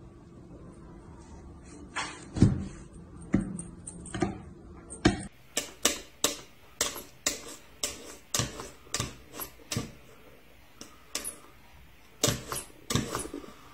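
A few sharp clicks and knocks, then a cat's paw tapping repeatedly on a clock lying flat on a table: a string of sharp, irregular taps about two a second.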